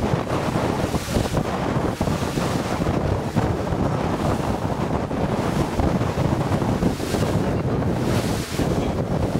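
Wind blowing on the microphone over the rush of water past the hull of a motor yacht under way at sea: a steady, gusty noise.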